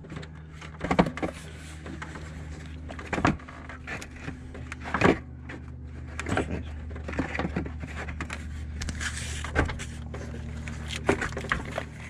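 A plastic radiator fan shroud being worked and hooked into its clips on the radiator, giving scattered knocks, clicks and plastic rattles over a steady low hum.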